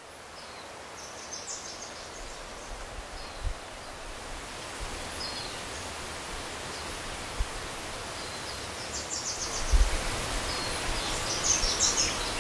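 Steady rushing of whitewater river rapids tumbling over rocks, slowly growing louder, with small birds chirping and twittering above it. A few brief low thumps, the strongest about ten seconds in.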